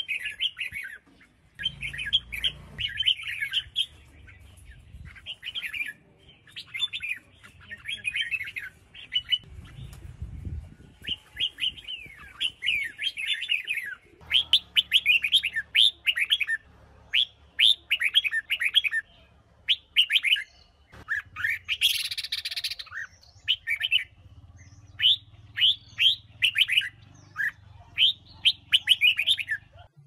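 Red-whiskered bulbul singing: short bursts of quick, chirping sweeping notes, phrase after phrase with brief gaps. A short hiss comes about two-thirds of the way through.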